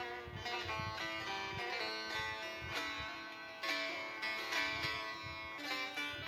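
Background music: a plucked string instrument playing a quick melody over low drum beats.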